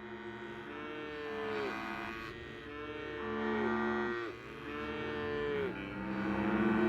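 A large herd of cattle mooing, several cows calling at once in overlapping long moos that drop in pitch as they trail off.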